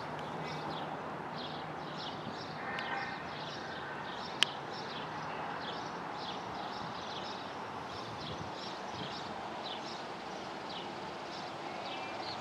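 Outdoor ambience: a steady rushing hiss, with small birds chirping over and over throughout, and a single sharp click about four and a half seconds in.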